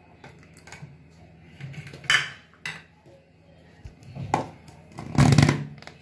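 A metal spoon clinking and scraping against a stainless-steel mixer-grinder jar, then the jar's plastic lid being handled with knocks and clatter. The loudest clatter comes about two seconds in and again, louder, about five seconds in.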